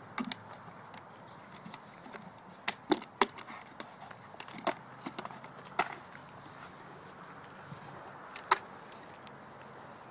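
A yellow plastic chair knocking and clacking in a brown bear's paws as it handles and lifts it: a few sharp separate knocks, a cluster of them about three seconds in and single ones later.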